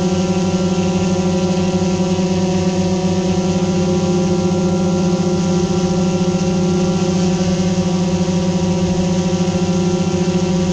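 Steady hum and whine of a camera drone's motors and propellers in flight, holding an even pitch.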